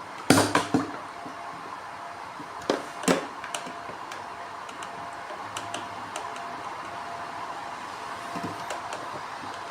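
HHO electrolysis generator running with a steady hum, with a few sharp knocks and clicks just after the start and again around three seconds in.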